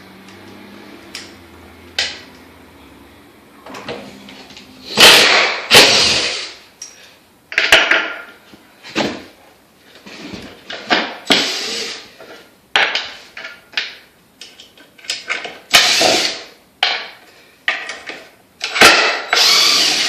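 A DeWalt 20 V impact driver runs in about a dozen short, loud bursts of hammering, starting about five seconds in, as it drives screws. The bit is damaged and is not driving the screws well. A couple of sharp clicks come in the first seconds.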